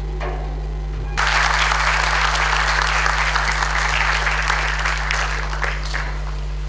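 Audience applauding: the clapping starts abruptly about a second in and dies away near the end, over a steady low electrical hum.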